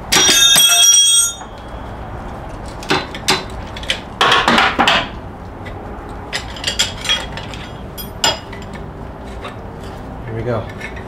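The harmonic balancer on a Jeep 4.7 V8 breaks free of the crankshaft under a screw puller with a loud metallic bang that rings for about a second. Clinks and scrapes of steel follow as the loosened balancer and puller are handled and drawn off the crank.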